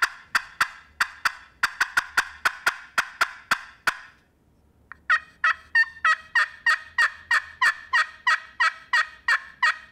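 Glass pot turkey call played with a wooden striker: two runs of rapid hen yelps, about four notes a second, with a short pause about four seconds in, the second run ringing with clearer, more pitched notes. A loud call with a lot of volume, used for locating gobblers.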